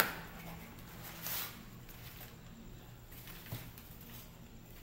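Cardboard box being pulled open by hand: a sharp tear at the start, then rustling of the flaps and a wrapped item being handled, with a short knock about three and a half seconds in.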